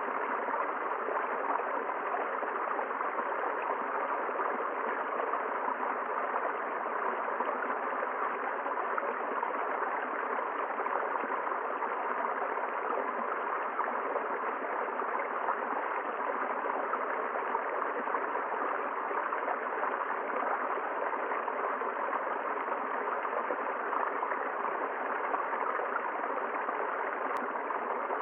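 River water flowing over a streambed: a steady, even rushing with no change in strength.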